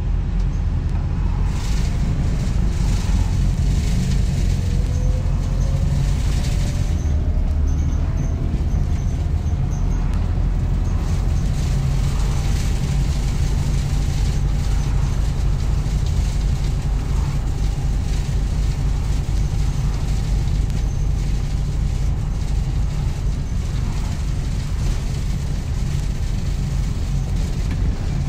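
Interior sound of a Volvo B5TL double-decker bus on the move: steady low rumble of its diesel engine and the road, with a whine that rises in pitch a few seconds in as the bus gathers speed, then holds. Light rattles from the bus body and fittings run through it.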